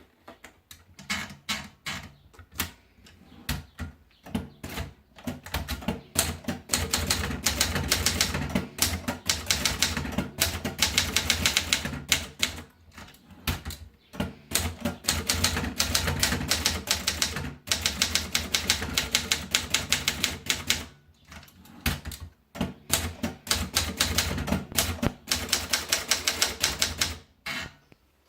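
Adler Gabriele 25 typewriter being typed on: a dense run of sharp key strikes, a few at a time at first and then fast, steady bursts, broken by brief pauses.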